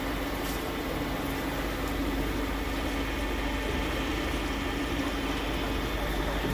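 A machine running steadily: a constant low hum and a higher steady tone over an even mechanical noise, with no change in speed.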